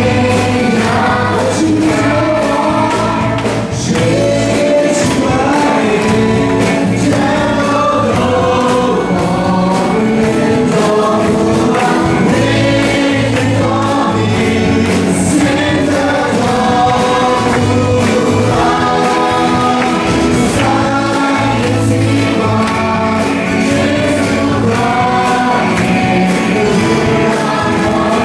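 A worship team of mixed male and female voices singing a Burmese-language praise and worship song together into microphones, with a live band of guitar and drums accompanying.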